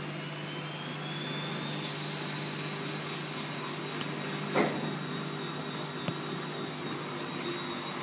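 Bosch WFF2000 washing machine spinning up for its short 400 rpm spin after the prewash drain: the motor whine rises for about two seconds, then holds steady over a low hum. A brief squeak about four and a half seconds in.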